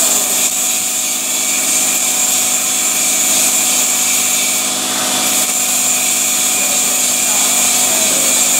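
Stick (shielded metal arc) welding: the electrode's arc crackling and hissing steadily as a bead is run on steel, with a low steady hum underneath.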